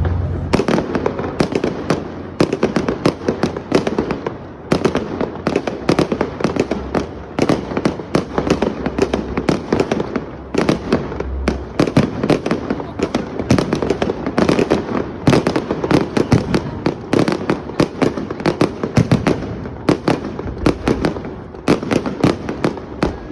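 Fireworks finale barrage: a dense, rapid run of aerial shell bangs and crackles, several a second, with short lulls about four, ten and twenty seconds in.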